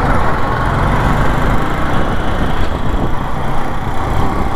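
Steady riding noise from a motorcycle moving through city traffic: the bike's engine running under a continuous rush of wind and road noise on the rider-mounted camera, without pauses.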